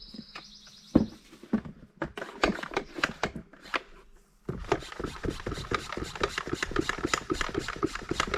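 A plastic pump sprayer being handled and filled with deck cleaner: scattered knocks and rubs, then from about halfway a dense, fast run of small clicks and rattles.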